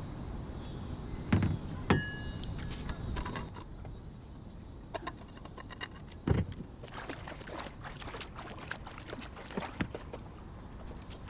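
Paddling a 10-foot plastic Pelican kayak: water splashing and lapping at the hull over a steady low rumble, with a few sharp knocks of the paddle against the hull about one and two seconds in and again around six seconds.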